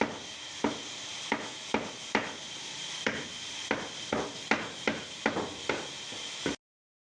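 Hammer blows on wood in a steady rhythm, about two to three a second, over a steady hiss. The sound cuts off suddenly near the end.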